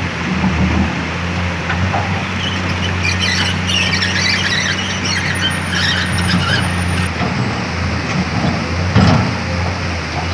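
Komatsu PC210 excavator's diesel engine running steadily under load, with high metallic squealing and scraping from about two and a half to seven seconds in as the machine works, and a single knock near the end.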